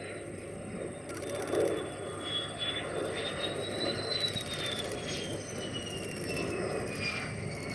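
MiG-17 jet fighter's centrifugal-flow turbojet running as the jet comes in low to land: a rumble under a high whine that climbs slightly in pitch, then slides steadily down after the middle as the jet passes.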